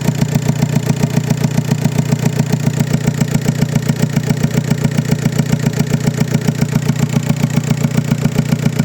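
Volkswagen Passat 1.9 TDI pump-injector diesel engine idling, with an even pulsing beat several times a second. The engine is misfiring on cylinder four.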